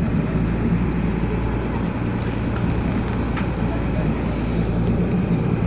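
Boat engine running steadily: a constant low drone with an even hiss over it.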